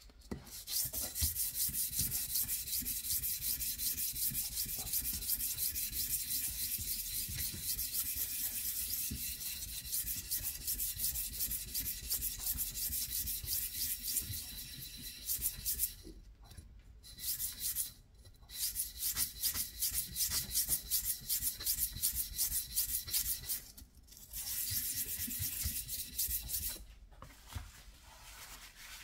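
A steel Dnepr 650 engine tappet rubbed rapidly back and forth by hand on 240-grit sandpaper laid over a flat steel plate, lapping its face smooth: a fast, even rasping scrape, broken by a few short pauses in the second half and dying down near the end.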